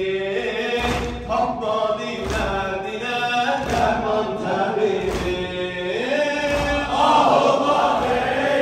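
Religious chanting: a male voice sings long, held melodic lines over low thumps at a regular beat. About seven seconds in, it grows louder and fuller, as other voices join.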